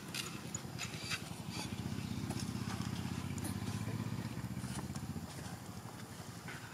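A low, pulsing motor hum, most likely a passing motor vehicle, swells about two seconds in and eases off near the end, with scattered light clicks and rustles of dry leaves.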